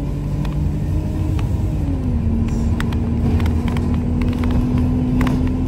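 Wright StreetLite single-deck bus heard from inside the saloon while on the move: a steady engine and drivetrain rumble with a whining tone that slides down in pitch about two seconds in, and scattered light rattles from the interior.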